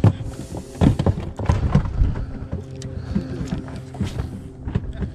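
A run of knocks and thumps from fish and gear being handled in a small fishing boat, as the catch is put in the live well, over a steady low hum.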